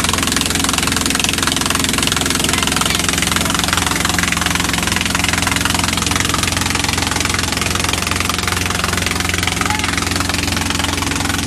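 A long-tail boat's engine running steadily under way, a loud continuous sound with a rapid, even beat.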